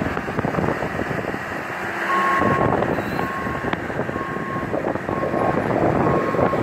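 A vehicle's reversing alarm beeping about once a second, starting about two seconds in, over steady wind noise on the microphone.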